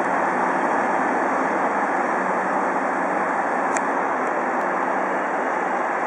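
Steady, loud hiss of steam escaping from a standing DR Class 23.10 steam locomotive, with a low steady hum underneath. A single brief sharp tick comes a little before the midpoint.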